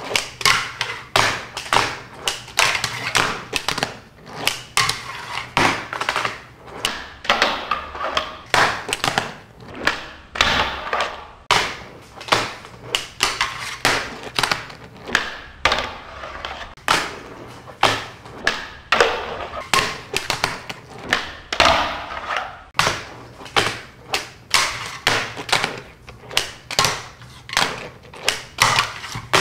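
Handboard tricks on a countertop: a continuous run of sharp clacks, a few a second, as the board is flipped and landed, with wheels rolling and trucks scraping as they grind and slide along a ledge between the clacks.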